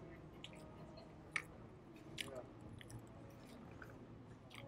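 A person chewing food with the mouth closed, quietly, with faint wet mouth clicks and a sharper click about a second and a half in, over a faint steady low hum.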